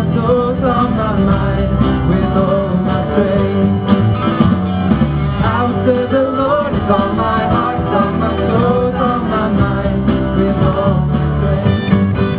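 A band playing a song, with singing over guitar.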